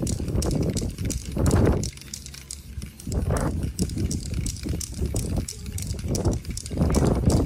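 Aerosol spray-paint can sprayed in short, irregular bursts onto poster board, with quick sharp clicks and taps of the can as it works the surface.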